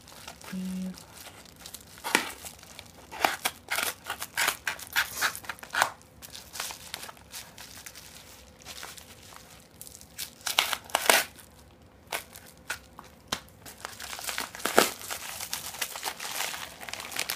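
Craft knife scoring and slicing open a kraft-paper padded bubble mailer, with paper crinkling and tearing as it is cut and pulled open. The sound comes in scratchy bursts of short rustles and rips, densest in a few clusters.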